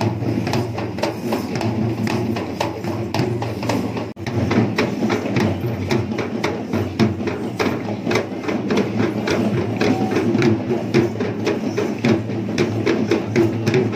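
Procession percussion: a fast run of sharp drum and cymbal strokes over a steady low hum, with a brief break about four seconds in.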